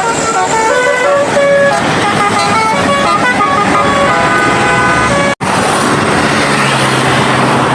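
Indonesian bus 'telolet' horn playing a quick tune of stepped musical tones over engine and traffic noise, with a momentary dropout about five seconds in.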